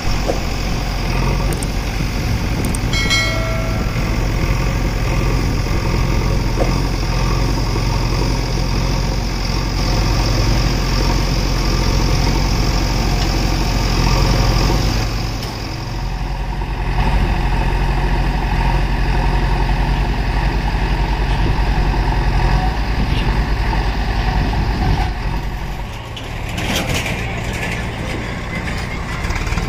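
JCB 3DX backhoe loader's diesel engine running steadily under load while it digs earth with its backhoe. There is a short high squeal about three seconds in and a brief clatter near the end.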